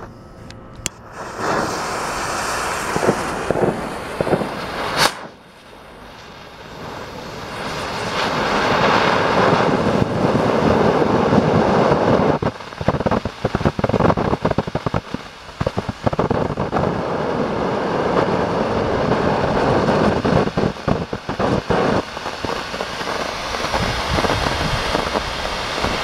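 Colored smoke fireworks (Cannon Mammoth Smoke) going off: a few seconds of fuse sputtering and a sharp crack about five seconds in, then a loud steady hiss of smoke jetting out from about eight seconds in.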